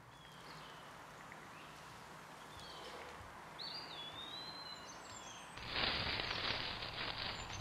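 Soft forest ambience with a few bird chirps. About six seconds in, loud rustling and shuffling starts as a person in a tree costume walks in.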